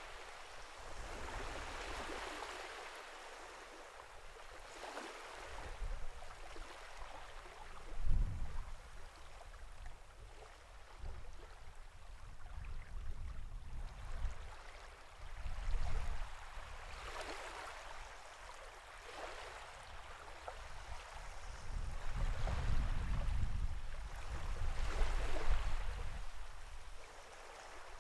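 Sea water washing and lapping, swelling and easing every few seconds, with deeper rumbles in the loudest surges: one about eight seconds in, one around sixteen seconds, and a longer stretch in the last third.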